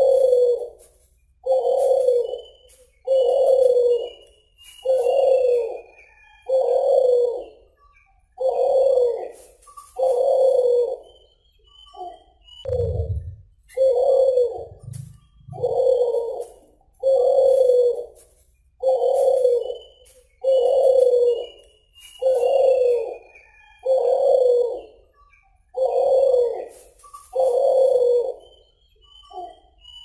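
Caged suhu (kulhu) dove cooing over and over in its 'dor tak kowor kowor' call, one low coo every second and a half to two seconds. Faint high chirps run between the coos, and there is a brief low thump about halfway through.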